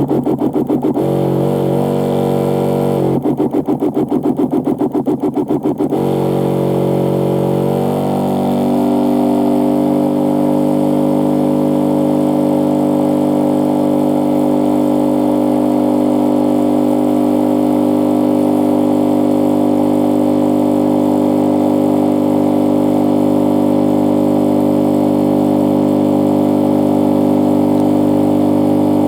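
Battery-powered electric backpack sprayer's pump motor running with a steady hum. It pulses rapidly in the first second and again for about three seconds a little later, then settles into an even, unbroken hum after about eight seconds.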